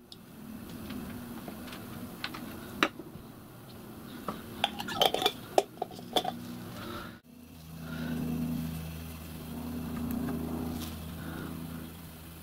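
Small brass injector parts and a glass jar of vinegar clinking, with a few single taps and then a quick run of light metallic clinks in the middle, over a low steady hum. After a sudden break the low hum returns louder and swells twice.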